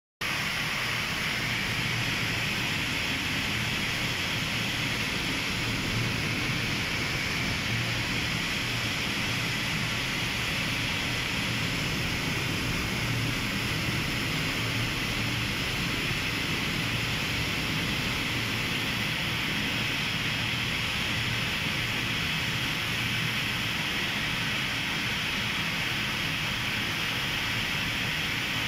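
Steady industrial rushing noise inside a cement plant's clinker grate cooler, with the rotary kiln firing beyond: a constant hiss over a low hum, with no breaks or impacts.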